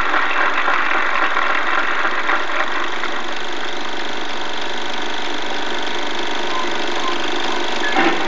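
Steady mechanical whirr of a film projector running, with a brief louder sound near the end as the marching band's music begins.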